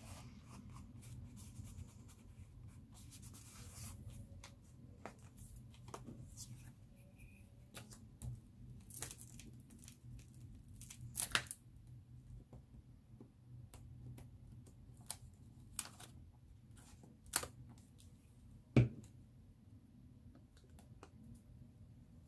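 Paper rustling and crinkling as hands press down and handle glued paper cutouts in a journal, with scattered light taps and clicks. The sharpest come about halfway through and near the end.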